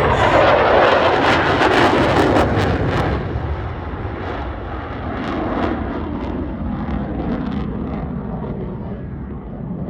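Loud jet noise from an F-35A Lightning II's engine, loudest and crackling over the first three seconds, then slowly fading.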